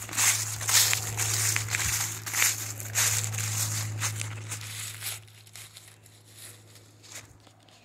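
Dry fallen leaves crunching and rustling underfoot in a run of uneven steps, dying away after about five seconds, over a steady low hum.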